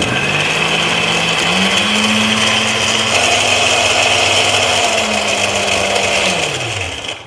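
Electric mixer grinder running with a wet load of soaked red chillies, garlic and ginger in water, grinding them to a chutney paste. The motor starts abruptly, runs steadily, and its hum falls away as it winds down near the end.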